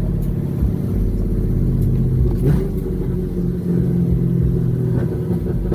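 Loud V8 exhaust of a 2011 Camaro 2SS, its 6.2 L LS3 running through long-tube catless headers with muffler and resonator deleted, heard from inside the cabin on the highway. The engine note changes about halfway through.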